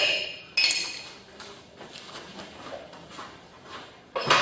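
Glass scent jars set down with metal tongs into holders on the floor: two sharp clinks with a short ring, at the start and about half a second in. A similar sharp knock comes near the end.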